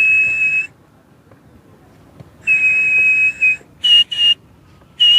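A man whistling an imitation of a mobile phone's call and message tone: a steady, high whistled note that stops about half a second in, a second held note of about a second, then quick short chirps near the end.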